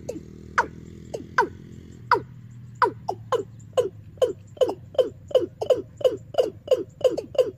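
Recorded bird call played through a horn loudspeaker on a bird-trapping amplifier: a run of short, sharply falling chirps that speed up to about three a second, over a low steady hum at first.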